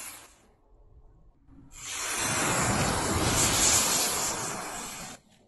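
Homemade green fire composition of barium nitrate, magnalium and CPVC burning with a hiss. One burn dies away at the start, a second flares up just under two seconds in and cuts off suddenly near the end.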